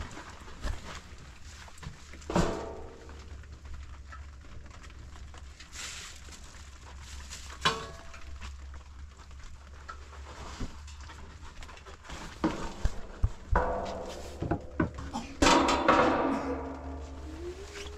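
Metal pots and utensils knocking and clanking, several strikes ringing briefly, with a cluster of clanks late on. A steady low hum runs underneath.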